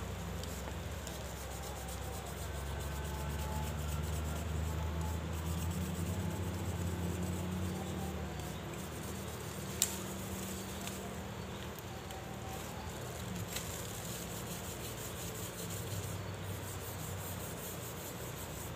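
A blade scraping and cutting at a bamboo stalk, with a sharp knock about ten seconds in, over a low steady hum that fades about halfway through.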